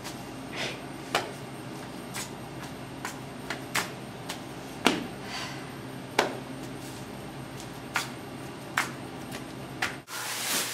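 Scattered sharp taps and clicks, one or two a second at uneven spacing, over a steady low hum in a small room. Near the end a louder rustling noise starts.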